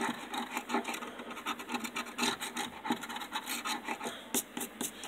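Plastic scraper scratching the coating off a scratch-off lottery ticket in a rapid series of short, irregular scraping strokes.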